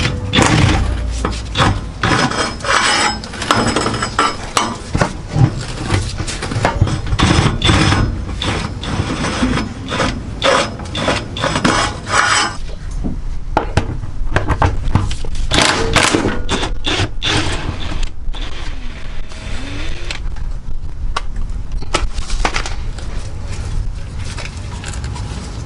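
Ratchet and socket working the drive shaft center support bearing bolts on a 2009 Subaru Outback: dense, irregular ratcheting clicks and metal clatter for about twelve seconds. Then sparser metal clinks and handling as the bolts come out and the drive shaft drops.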